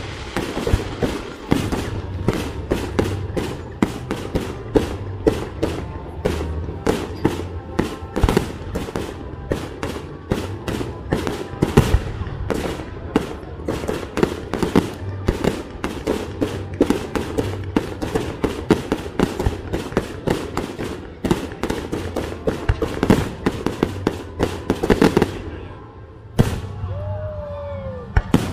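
Rapid barrage of fireworks bursting, several sharp bangs a second for most of the time. The barrage stops near the end, leaving a couple of single bangs.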